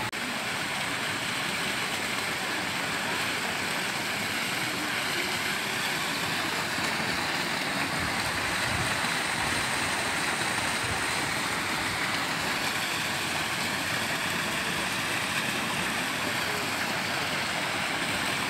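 Steady rushing and bubbling of water from a thermal pool's hydromassage jets, running evenly throughout.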